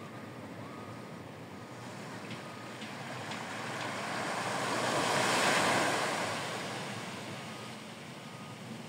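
A small wave breaking on a sand beach and washing up the shore: a hiss that swells to its loudest a little past the middle and then fades away.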